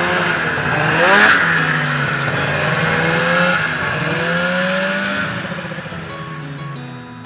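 A small motor vehicle's engine revving, its pitch rising and falling with the throttle, then fading away over the last couple of seconds.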